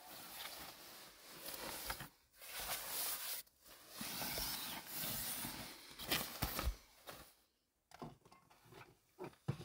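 Sleeping bag and bedding rustling as they are handled, in several bouts with short pauses, with a few soft low bumps near the end.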